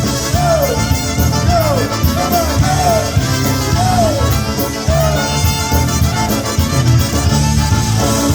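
Live polka band playing an instrumental passage between sung verses, with a steady beat and a short falling melodic slide repeated over and over.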